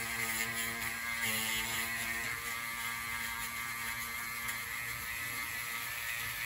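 Proxxon rotary tool running steadily, its felt buff polishing nickel photo-etch with a steady motor whine that is strongest in the first couple of seconds.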